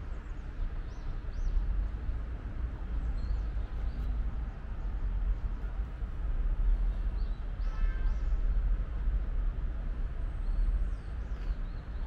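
Outdoor ambience: a steady low rumble with a few short, faint bird chirps scattered through it, and a brief pitched call about eight seconds in.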